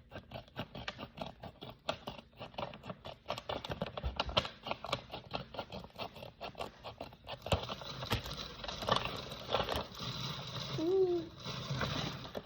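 Packaging of a small blind box being handled and opened by hand: rapid, irregular crackling and rustling, turning into denser crinkling from about seven and a half seconds in.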